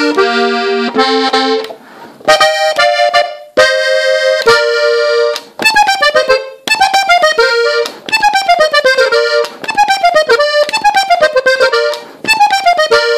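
Hohner three-row diatonic button accordion in F playing a fast melody on its treble buttons. It goes in short phrases with brief breaks, then a quick run of falling notes repeats about once a second.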